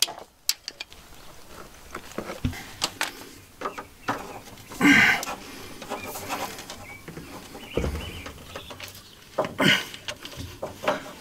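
Scattered clicks, knocks and scrapes of hand plumbing tools on PEX tubing: the tubing being cut and a manual expansion tool being worked to fit the shower lines.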